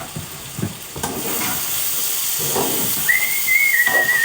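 Chicken and vegetables sizzling in a hot frying pan, the sizzle swelling about a second in and holding steady. Near the end a thin, high, slightly wavering whistle sounds for about a second and a half.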